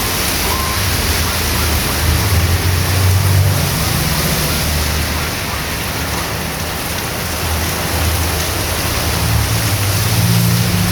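Heavy rain pouring steadily onto a street, with the low hum of a passing vehicle's engine growing louder near the end.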